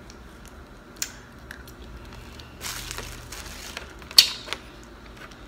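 Wrapper of a small cinnamon hard candy being crinkled and torn open by hand: a sharp crackle about a second in, a short rustle around the middle, and the loudest crackle a little past the middle.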